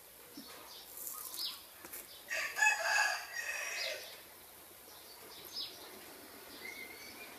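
A rooster crows once, for about a second and a half in the middle. Short high chirps of small birds come before and after it.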